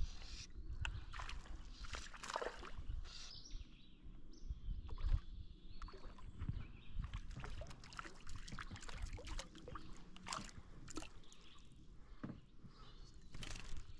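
Water sloshing and dripping around a canoe, with irregular small splashes and knocks as a paddle works the water.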